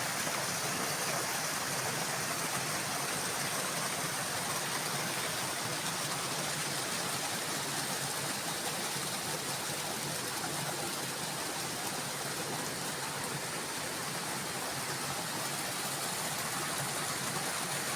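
Steady, even rush of water with no distinct individual sounds.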